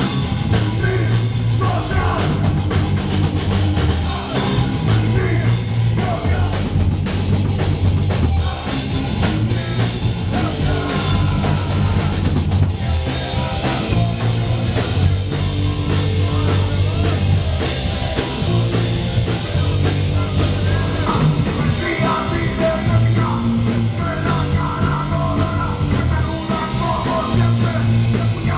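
A rock band playing live: electric guitar, electric bass and drum kit, with a singer's voice through the microphone.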